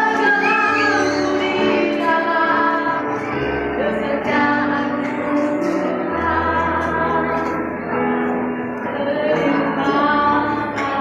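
A girl singing a melody in a clear voice, holding and gliding between notes, over musical accompaniment with low sustained notes.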